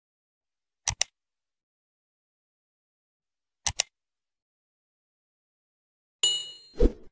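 Subscribe-animation sound effects: two mouse-click sounds, each a quick double click, about three seconds apart, then near the end a bright chime with a low thud.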